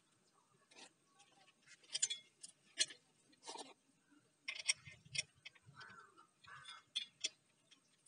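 Saw chain and metal attachment parts clicking and clinking as the chain is handled and fitted around a chainsaw bar on an angle-grinder conversion: irregular light ticks and rattles, with a duller knock about five seconds in.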